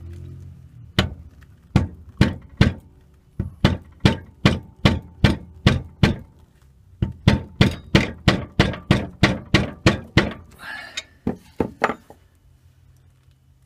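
Rubber mallet striking a copper rod held against the Record CL4 lathe's internal spindle locking ring: a long run of sharp, ringing taps, about three a second with short pauses, driving the ring tight. The tapping stops near the end.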